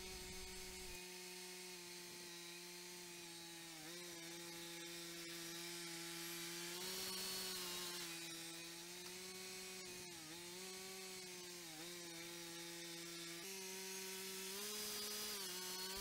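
Cook's 3238 band sawmill running faintly as its saw head travels along the log: a steady engine tone that dips in pitch briefly a few times and rises a little near the end.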